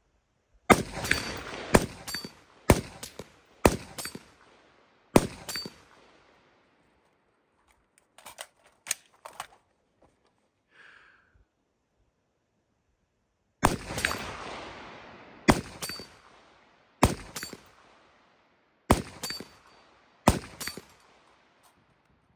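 AR-15 rifle fired in slow, deliberate single shots: five about a second apart, a pause with a few small handling clicks as the shooter changes from prone to kneeling, then five more, each echoing off the surrounding forest. A thin high ring follows several shots, the steel plate target being hit.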